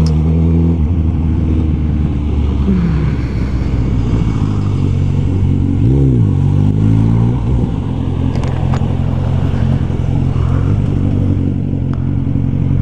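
Motorcycle engine heard from the rider's seat. Its pitch drops at the start as the bike slows, it revs up and back down briefly about six seconds in, then it runs low and steady.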